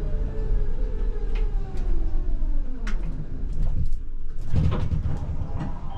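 ČKD Tatra T6A5 tram's traction motors whining and falling in pitch as it brakes to a stop, over rumble from the running gear with scattered clicks. About four and a half seconds in, the doors open with a clatter.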